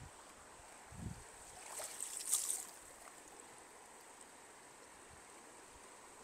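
Stream water running, with a low thump about a second in and a brief splash about two seconds in as a hooked brown trout is brought in.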